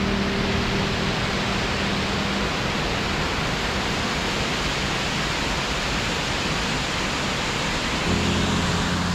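Loud, steady rush of water from spring-fed waterfalls pouring out of a cliff face. Held background music notes fade out about two seconds in and come back near the end.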